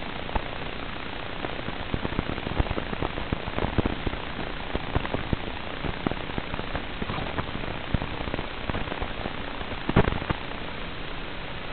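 Steady hiss with irregular crackles and pops, one cluster louder about ten seconds in: static on the audio channel of an analog FPV video recording.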